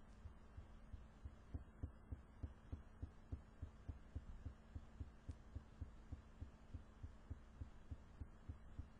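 Faint, rapid low thumping, about three thumps a second, over a steady faint hum.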